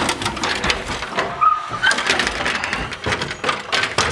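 Stepladder being carried and set against a wall: a run of knocks, clatters and scrapes, with a couple of short squeaks about a second and a half in.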